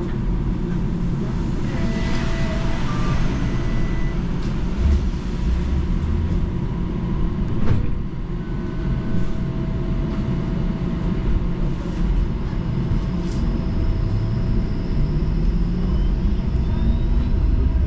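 Interior of a Toronto TTC streetcar: a steady low rumble from the car's equipment while it stands still, with a few short electronic tones. Near the end a faint rising whine from the electric traction motors as the streetcar pulls away.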